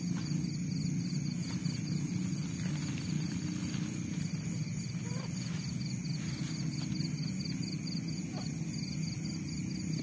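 Night insect chorus: a fast pulsing trill and several steady high-pitched tones, over a steady low din, with a few faint clicks from handling.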